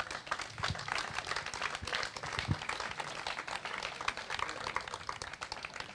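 Audience applauding, a dense patter of hand claps that thins out near the end.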